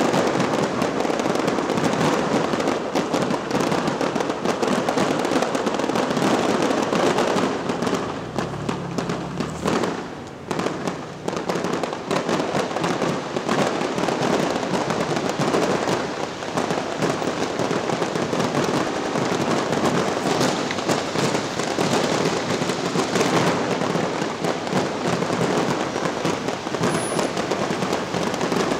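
Grand finale of an aerial fireworks show heard from almost directly underneath: a continuous barrage of shell bursts and crackle, easing briefly about ten seconds in before it picks up again.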